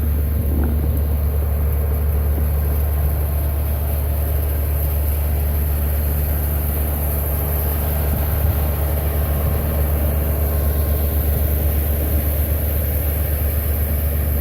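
Concrete truck's diesel engine running steadily at a constant low hum, driving the pump during a concrete pour.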